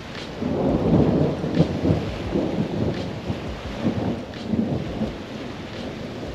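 Thunder rumbling from a storm over the lake, swelling about half a second in, loudest around one to two seconds, then rolling on and slowly easing.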